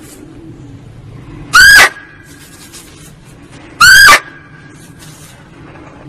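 Muntjac (barking deer) lure call: two short, loud barks about two seconds apart.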